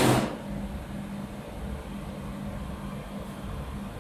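Steady electrical hum of a powered-up laser cleaning, welding and cutting machine, with a brief rush of noise right at the start.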